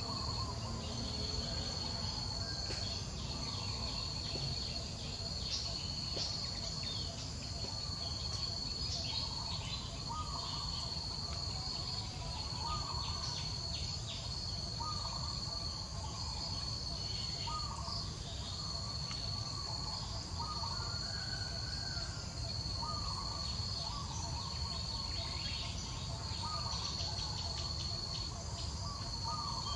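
Steady high-pitched drone of insects, unbroken throughout, with a bird repeating a short call every second or two from about a third of the way in.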